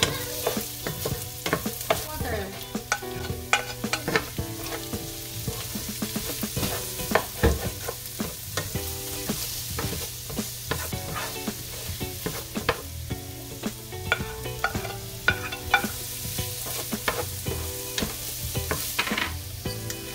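Wooden spatula stirring and scraping diced potatoes, carrots and ground beef in a metal frying pan, with frequent clicks and scrapes over a steady sizzle of frying.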